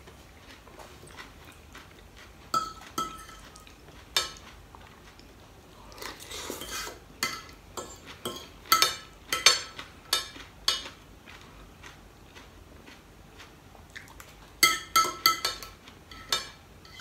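Knife and fork clinking and scraping on a plate while cutting food, in irregular clusters of sharp clinks: a few single ones early, a longer scrape about six seconds in, a dense run of clinks around nine to eleven seconds, and another quick run near the end.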